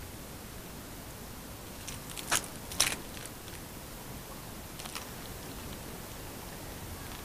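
Steady hiss from a poor backup camera microphone, with a few short crunchy clicks: two close together about two and a half seconds in and a fainter one near five seconds.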